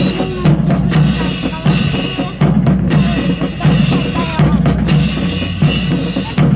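Rhythmic drumming with the stamping of boots and clacks of rifles from a marching rifle drill team.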